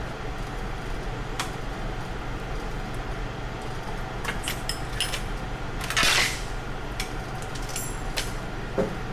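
Metal tools and parts clinking and knocking during hands-on disassembly of a pickup truck's front end, with one louder scrape about six seconds in, over a steady shop hum.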